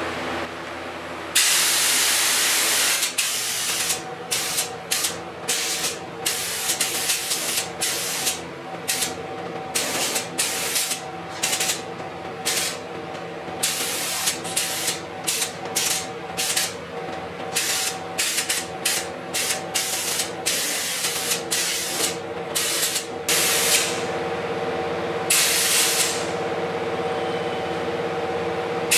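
Gravity-feed compressed-air spray gun hissing as it sprays epoxy primer. There is one longer pass about a second in, then many short trigger pulls of about one or two a second, over a steady hum.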